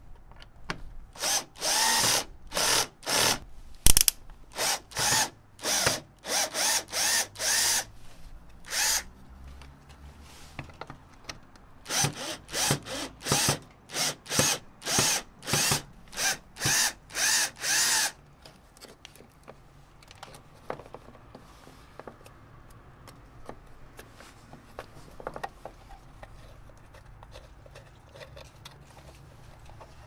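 Cordless drill-driver run in about twenty short bursts, in two runs with a brief pause between, backing out the screw that holds a front turn-signal lens in the bumper. For the last ten seconds or so only faint clicks and handling noise as the lens is worked loose by hand.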